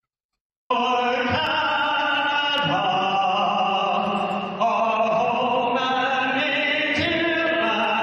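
A man singing a national anthem solo in an ice hockey arena, in long slow held notes. It starts after a short silence, under a second in.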